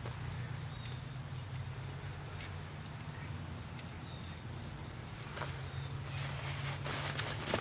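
Insects chirring in a steady high-pitched drone over a low steady hum. Light rustling and a few clicks come in near the end as the stuffed nylon pack is handled.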